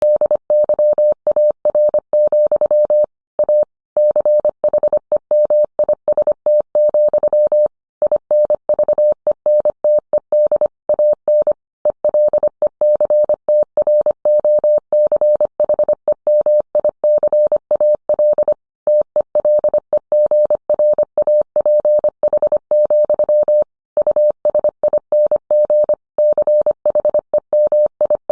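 Morse code sent as a single steady mid-pitched tone, keyed on and off fast in dits and dahs, with short longer pauses between words.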